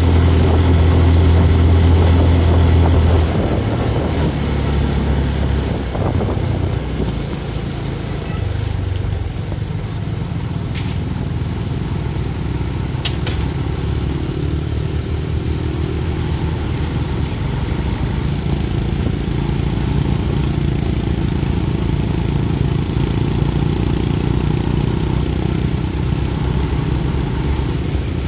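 Motor vehicle engine running while moving. Its loud low drone drops about three seconds in, and it then runs steadily at idle.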